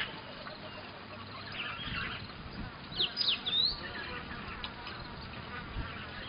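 A flying insect buzzing steadily, with a few quick high chirps about three seconds in.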